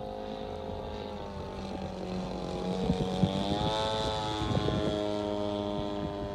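Large homemade radio-controlled model airplane's motor and propeller droning overhead in flight. About halfway through the drone grows louder and its pitch rises, then falls lower as the plane passes close by.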